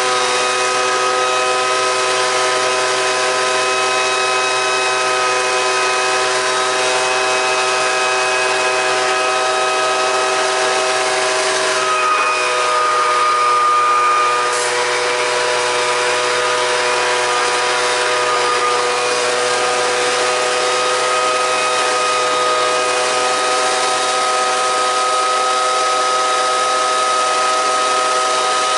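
Homemade turbocharger-based gas turbine ('turbo stove') running steadily: a whine of several steady tones over a hiss. About twelve seconds in it grows briefly louder for a couple of seconds, then settles.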